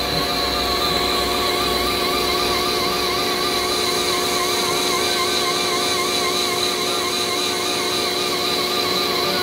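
TM-26120G centre lathe turning the outside of a steel hollow bar under coolant: steady machine hum with a high cutting tone and a slow, regular warble in pitch, running evenly.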